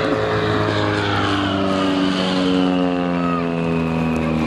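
Light high-wing aerobatic aeroplane's piston engine and propeller passing overhead. Its pitch drops steadily as it flies by and away.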